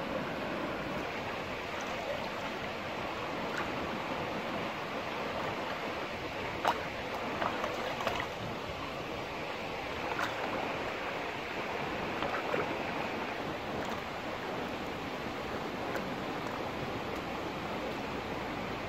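Shallow stream water running steadily, with a few short sharp clicks and small splashes standing out in the middle.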